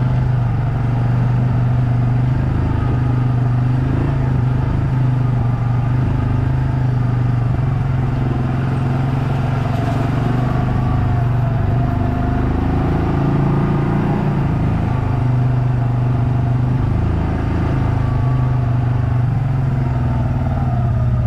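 Chainsaw running steadily under load while ripping a log into boards on a chainsaw mill, with a slight waver in pitch partway through.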